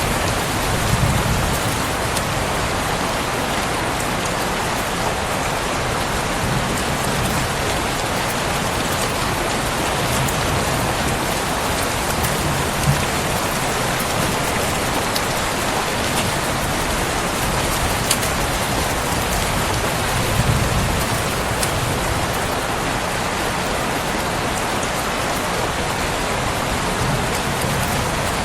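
Steady, dense rainfall pattering on a surface, with scattered sharper drop ticks.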